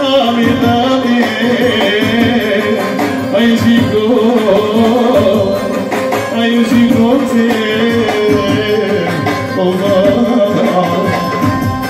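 A man singing live into a microphone, amplified through a PA speaker, accompanied by an electronic keyboard with a steady percussion rhythm.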